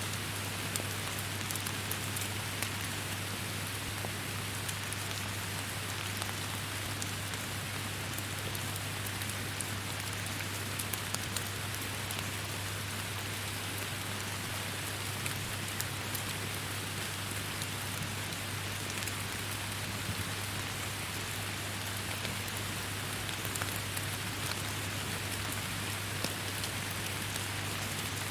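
Steady rain falling in a forest, an even hiss with scattered individual drops ticking on leaves and surfaces.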